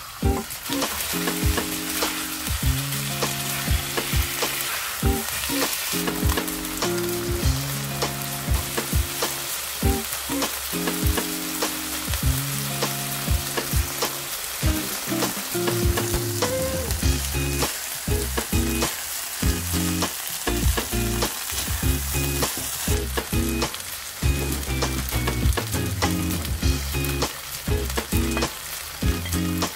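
Chicken strips sizzling as they stir-fry in a wok, with the spatula scraping and tapping the pan many times. Background music runs underneath.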